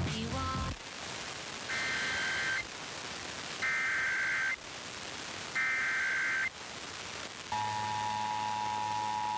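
Emergency Alert System SAME header: three short bursts of data tones, each about a second long and about a second apart. About 7.5 seconds in, the steady two-tone EAS attention signal begins. Together they mark the start of a Required Monthly Test.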